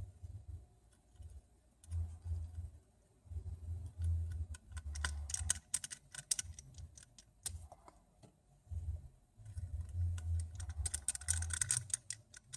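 Small irregular clicks and taps of a precision screwdriver and tools driving tiny screws back into an iPhone 6, with low muffled thumps of handling in between.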